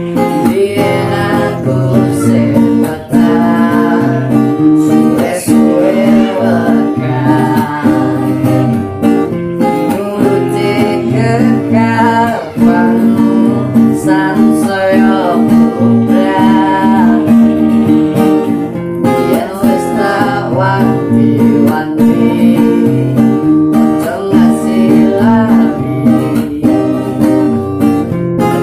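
A man singing while strumming chords on a nylon-string acoustic guitar.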